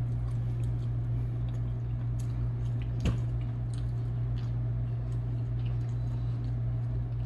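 A man chewing a mouthful of smokehouse fried chicken, with soft wet mouth clicks and squishes and one sharper click about three seconds in, over a steady low hum.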